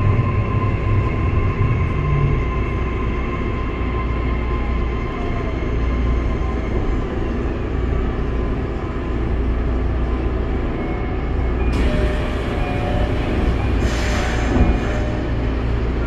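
Kobe Municipal Subway 6000 series train pulling into an underground station: steady wheel-and-motor rumble with a thin whine that fades as the train slows, wheels squealing, then an air hiss from about twelve seconds in, loudest near fourteen seconds, as it comes to a stop. Stepping chime-like tones begin just before the end.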